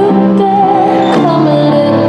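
Recorded music for a dance routine: a wavering sung melody over sustained chords and bass notes.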